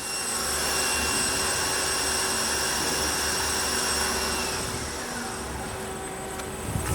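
Tsugami S206 Swiss-type lathe's front live-tooling drill spindle running at about 5500 rpm with a steady high whine over machine noise, then winding down with a falling pitch from about four and a half seconds in.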